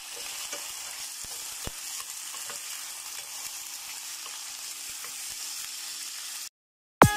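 Raw chicken pieces frying in oil with chopped onion, sizzling steadily while a wooden spatula stirs them, with light clicks of the spatula against the pan. The sizzle cuts off suddenly about six and a half seconds in.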